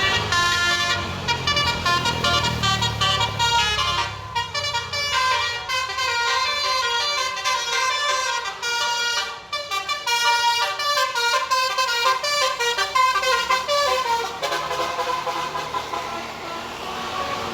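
Bus basuri horn, a multi-trumpet musical air horn, playing a quick tune of loud pitched notes that step up and down several times a second. The last few seconds have longer held notes. A low rumble sits under the first few seconds.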